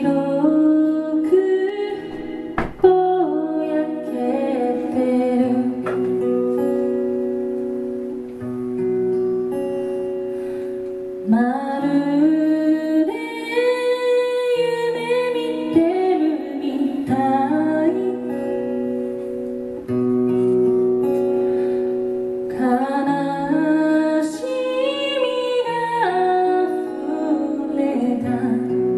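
A woman singing while playing an acoustic guitar, with held guitar notes under her voice. A sharp click stands out about three seconds in.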